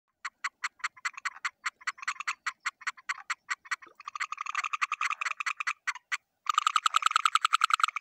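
A frog calling, its paired vocal sacs puffing out at the corners of its mouth: a rapid train of clicking pulses, about five a second at first, growing denser about four seconds in. After a brief break near the end comes a faster, louder run.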